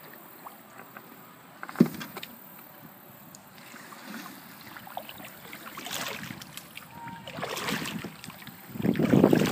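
Kayak paddle strokes splashing in the water, a few swells about a second and a half apart, the loudest near the end. One sharp knock about two seconds in.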